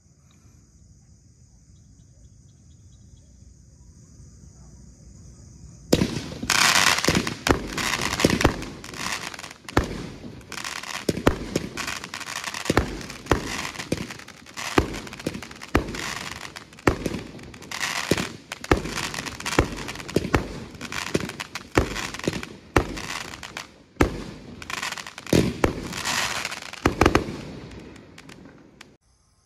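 Legendary Fireworks 'Treasure Island' 20-shot cake firing a rapid series of shots: launches and bursts with crackle between them. It starts about six seconds in and ends just before the close. Before the first shot, only faint crickets chirping.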